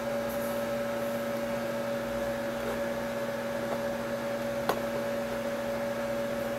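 Steady electrical or machine hum with a faint hiss, holding two steady tones, like a computer's fan and mains hum picked up by the microphone. One short click comes about two-thirds of the way through.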